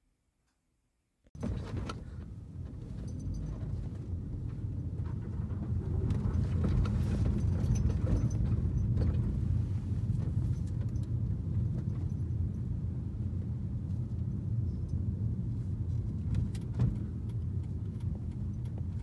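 Steady low rumble of a moving car heard from inside the cabin, with small rattles and clicks over it.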